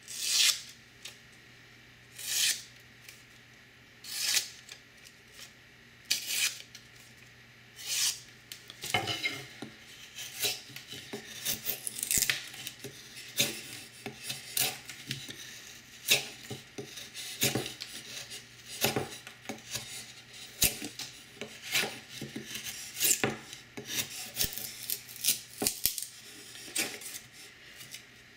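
Maxamet-steel folding-knife blade cutting shavings from a pine stick, each cut a short dry scrape of wood. At first the cuts come singly about every two seconds; from about nine seconds in they come quicker and closer together.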